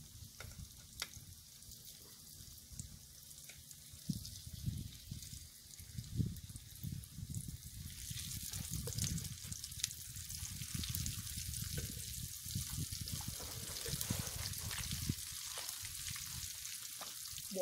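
Oil sizzling in a frying pan over wood embers as pieces of fish are laid in. The sizzle grows louder and hissier about halfway through, with scattered small crackles and soft low thumps.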